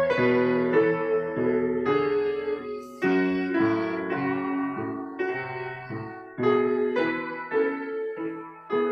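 Piano played four hands by two children: a slow melody over chords, each note struck with a clear attack and left to ring, in short phrases with brief breaks between them.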